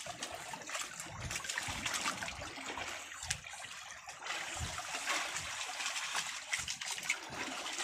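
Sea water washing and splashing against the side of a wooden outrigger fishing boat's hull, a steady rushing hiss with small scattered splashes.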